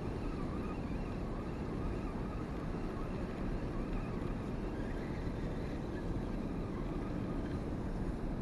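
Steady low rumble of wind on an action camera's microphone, with no distinct events.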